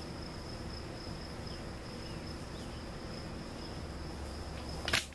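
Honey bees buzzing as they fly around their hive: a steady hum with a constant thin high-pitched whine over it. A sharp click near the end.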